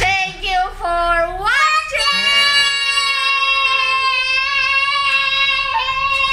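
A child singing: a few short notes, then the voice slides up and holds one long, steady high note.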